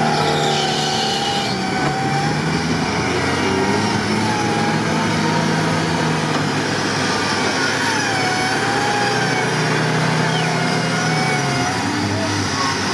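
Lada Niva engine revving under load as the 4x4 ploughs through a muddy pond, its wheels digging in. A wavering whine rises and falls over the engine note.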